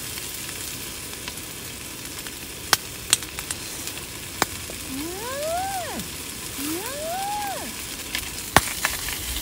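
Food frying in a pan, a steady sizzling hiss with a few sharp clicks. About halfway through come two long calls one after the other, each rising and then falling in pitch.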